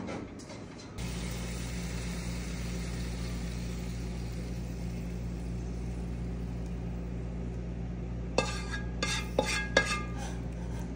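Cutlery clinking against dishes several times near the end, over a steady low hum.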